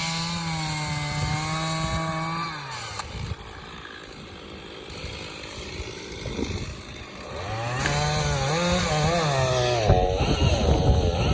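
Two-stroke chainsaw running at high revs, then the throttle is let off about two and a half seconds in and the pitch falls away. After a few quieter seconds it is revved again, its pitch wavering up and down, and it turns rougher near the end.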